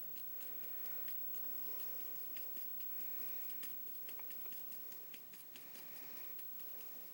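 Hot soldering iron tip tapping lightly into a pistol's plastic grip panel while stippling it, many small irregular clicks, several a second.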